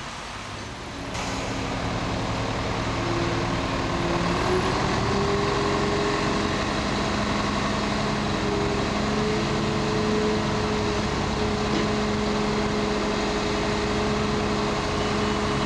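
Mobile crane's diesel engine running under load while it hoists and swings a motor yacht in slings; it revs up about a second in and then holds, its pitch stepping up and down a little as the hoist works.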